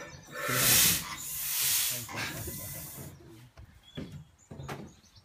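Two loud hissing rushes, each just under a second long, then a few light knocks near the end.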